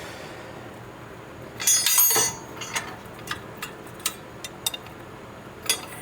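Metal tools and brake caliper hardware being handled: a short metallic rattle about a second and a half in, followed by a run of scattered sharp metal clinks.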